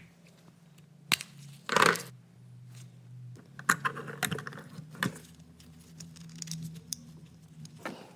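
Small clicks and clinks of a car key and its parts being handled, with a brief louder scrape about two seconds in.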